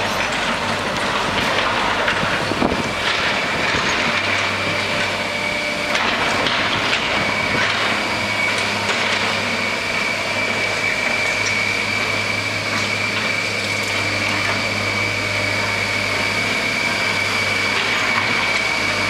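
Hydraulic excavators running steadily while demolishing a brick building, with scattered knocks and clanks of rubble. A steady high whine sets in about three seconds in and holds.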